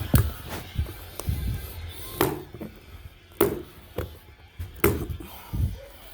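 A series of sharp knocks and taps, about eight in six seconds at uneven spacing, with music playing in the background.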